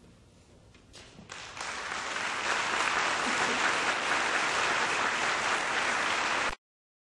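Audience applauding at the end of a concert band's piece: a few scattered claps about a second in swell into full, steady applause, which cuts off suddenly near the end.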